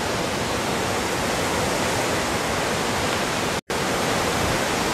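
Steady rush of hurricane-force wind through trees, a dense even noise with no let-up. The sound drops out completely for a split second about three and a half seconds in.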